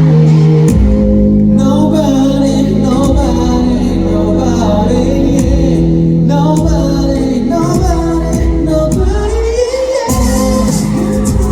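Live pop song with a singing voice over a band accompaniment, amplified through a PA.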